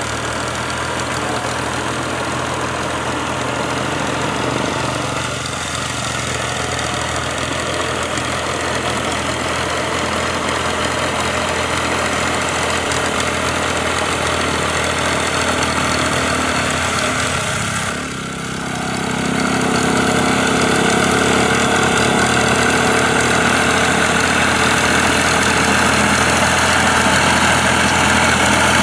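Fiat 480 tractor's diesel engine running steadily under load as it works through a flooded rice paddy. About two-thirds through, the sound dips briefly, then comes back louder with more hiss.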